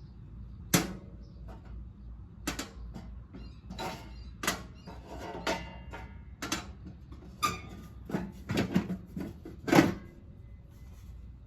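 Knocks and clatter from parts being handled: about a dozen sharp, separate knocks spread over ten seconds, the loudest near the end.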